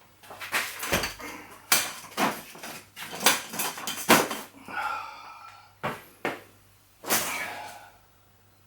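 Irregular sharp clanks and knocks, like hard objects being handled and set down, with a brief higher-pitched sound about five seconds in.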